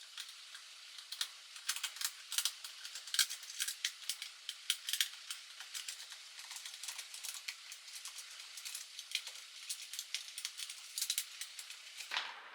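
Irregular quick clicks and light rattles, several a second, of a plastic extension box and small tools being handled while it is worked on, with a brief rustle near the end.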